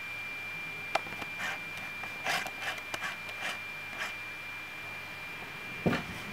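Scattered rubbing and clicking handling noises, densest from about two to three and a half seconds in, with a louder thump near the end, over a steady faint high-pitched whine.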